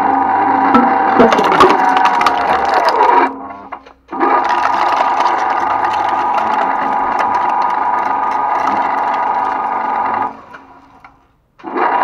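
Twin-shaft shredder running with a steady motor-and-gearbox whine, its toothed rotors crushing material with a burst of cracking and snapping about a second in. The whine drops in pitch and fades out near the three-second mark, then returns abruptly; it fades out again near the end and comes back.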